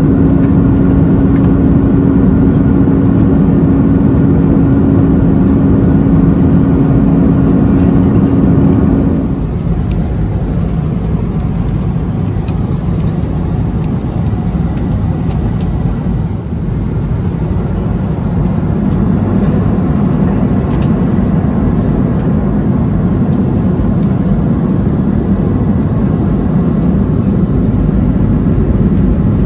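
Airbus A330 cabin noise in flight: the steady rush of airflow and Rolls-Royce Trent 700 engines, with a steady droning tone at first. About ten seconds in, the sound changes abruptly to a somewhat quieter, even rush without the tone.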